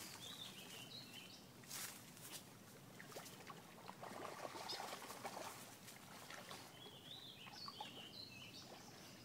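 A songbird sings a short warbling phrase twice, near the start and again about seven seconds in. Under it are faint rustling and a few soft knocks.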